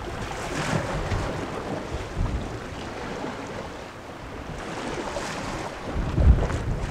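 Sea waves washing against rocks, with wind buffeting the microphone and a stronger low gust near the end.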